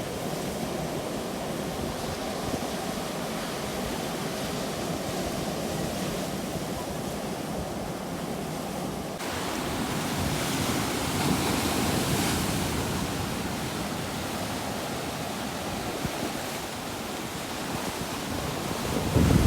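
Sea waves washing in, a steady rush of surf that swells about halfway through.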